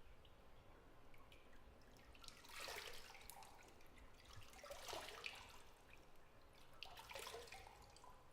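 Bathwater in a filled tub splashing faintly three times, a couple of seconds apart, with a few soft drips between.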